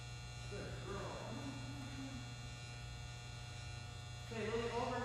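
Steady low electrical hum, with faint voice-like sounds about a second in and a louder stretch near the end.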